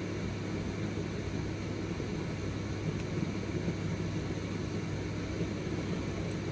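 Steady low hum with an even hiss, unchanging throughout, and a faint tick about three seconds in.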